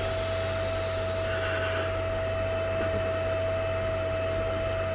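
Steady electrical hum and fan whir with one constant whine, from a transformer-powered soldering station with a built-in cooling fan, while its iron melts solder on a circuit board. A couple of faint ticks sound about one and a half and three seconds in.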